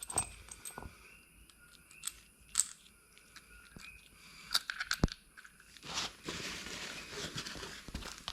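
Scattered light clicks and knocks of small metal clutch parts and bolts being handled, then from about six seconds in a steady rustling scrape.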